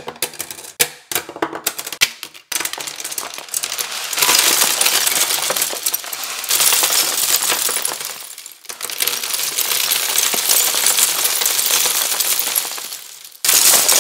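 Loose plastic Lego pieces dropping and clattering onto one another: a few separate clicks at first, then a dense, loud clatter as pieces pour down in a stream, easing off twice for a moment.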